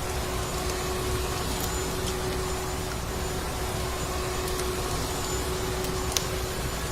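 Vacuum cleaner running steadily, a constant drone with a single steady hum, with a few sharp wood-fire crackles scattered through it.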